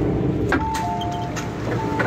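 MTR M-Train comes to a stop, its running hum dropping away with a click about half a second in. The train's door chime then sounds twice, a higher note falling to a lower one each time, as the doors open.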